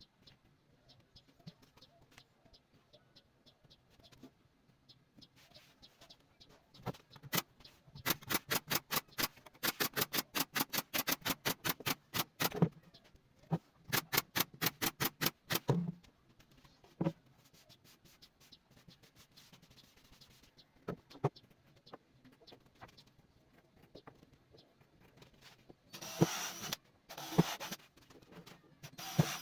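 Two runs of rapid sharp taps, about five a second, then a few short rasping strokes near the end.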